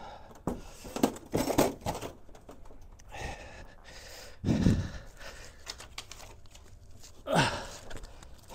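Unpacking handling noise. There are a few knocks about a second in as the aluminium case is set down, and a heavier thud around halfway. Softer rustling and crinkling of the grinder's metallised plastic wrapping follow, with a short falling sound near the end.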